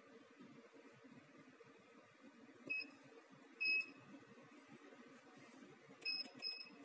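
Four short, high electronic beeps from a UV-VIS spectrophotometer's membrane keypad, one for each key press as standard concentrations are entered. The beeps fall about 3, 4, 6 and 6.5 seconds in, over a faint steady hum.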